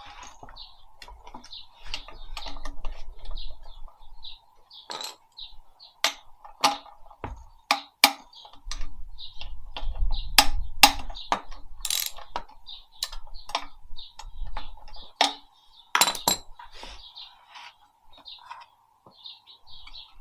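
Irregular metallic clicks and knocks of hand tools and loose engine parts being handled, with small birds chirping in the background.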